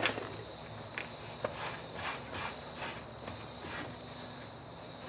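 A cloth rag wiping and rubbing the steel lower control arm around the ball-joint seat to clean it, as soft irregular scuffs that die away after about four seconds.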